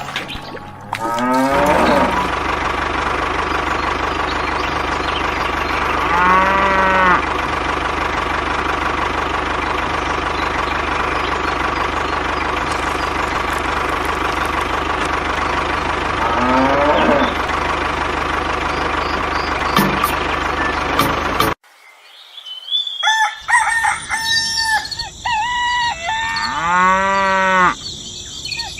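Cattle mooing a few times over a steady, dense noisy drone. The drone cuts off suddenly, and after a short gap comes a quick run of short chicken and rooster calls.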